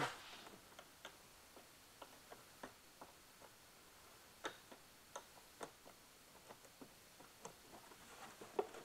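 Faint, irregular clicking of a small hand ratchet as it loosens the nut on a car battery's negative terminal clamp.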